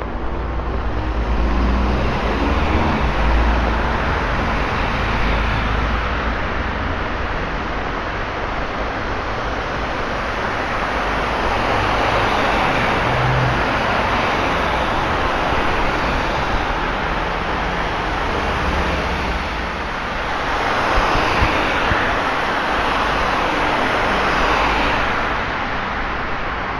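Road traffic on a wet street: tyres hissing through water as vehicles pass in swells, with a deep engine rumble in the first few seconds.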